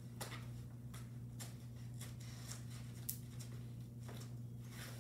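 Packaging paper rustling and crinkling in short irregular bursts as it is pulled and unwrapped from a new purse, over a steady low hum.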